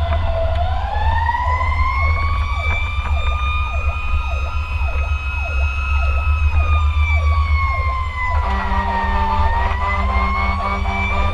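Fire engine sirens heard from inside the cab: one wails slowly up and down while a second sweeps down fast, about twice a second. About eight seconds in, the air horn starts sounding steadily over them, with the diesel engine rumbling underneath.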